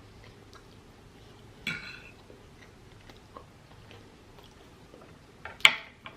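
Close-up eating sounds: quiet chewing of chicken biryani with small clicks of a fork, a brief noisy sound about two seconds in, and a sharp click near the end that is the loudest sound.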